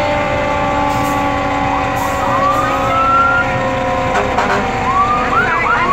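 Fire engine siren sounding as the engine pulls slowly past: several long, steady tones that sag slowly in pitch, with short rising whoops about two seconds in and again near the end.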